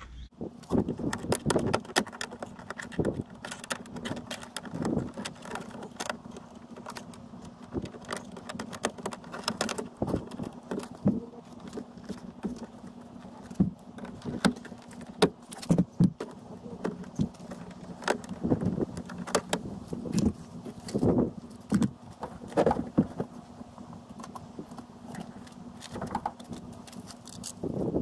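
Sped-up sound of hand work on a van's door trim: a quick, irregular jumble of clicks, clinks and rattles from tools, screws and plastic panel clips, over a faint steady hum.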